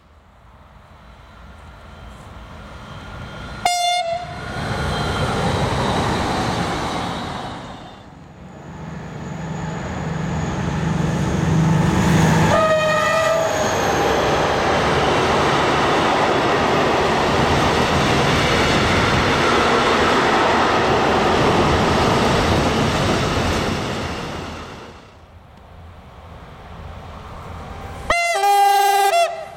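Freight trains passing on the line with steady rolling wheel noise. A locomotive horn sounds three times: short blasts about 4 s and 13 s in, and a longer blast of several tones near the end.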